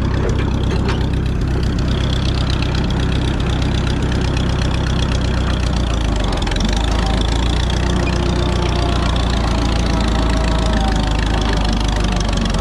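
Minneapolis Moline ZB tractor engine running steadily, held even by its governor, its low note shifting slightly about six seconds in.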